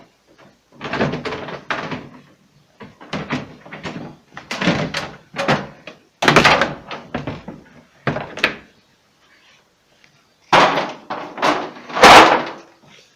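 Refrigerator doors being opened and handled: a string of clunks and thumps, the loudest about six seconds in and near the end.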